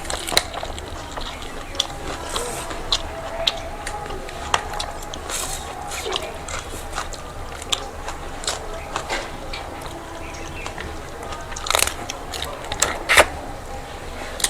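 Close-up eating sounds from people eating rice and curry: chewing and biting, with scattered wet clicks and smacks and two louder bursts near the end.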